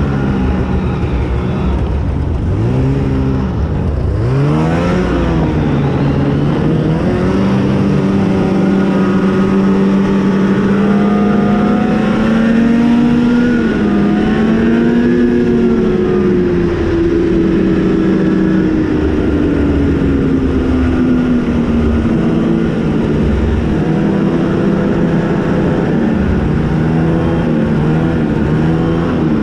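Arctic Cat ZR 8000 RR snowmobile's 800 cc two-stroke twin running under throttle, its pitch dropping and climbing sharply a few times in the first seconds, holding high, then easing down and settling to a steadier pace.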